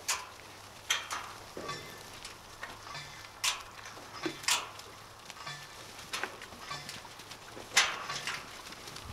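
Clanks and rattles of a wheeled steel-panel livestock pen being pushed over pasture: a string of sharp knocks at uneven intervals, about seven in all.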